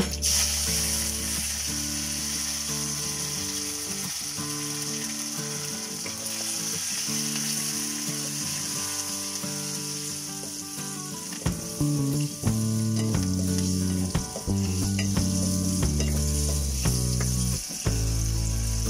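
Dried red chillies, garlic and curry leaves sizzling as they fry in a pot over a wood fire. Scattered clicks and knocks come from a wooden stirring stick against the pot, more often in the second half.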